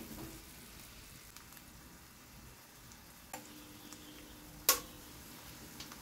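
Eggs frying with a faint, steady sizzle in a small non-stick skillet as they are stirred with a wooden spatula. A single sharp knock comes a little past the middle.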